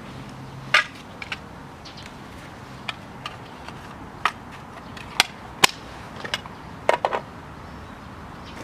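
A dozen or so sharp clicks and knocks at irregular intervals, a few bunched together near the end, over a steady background hiss.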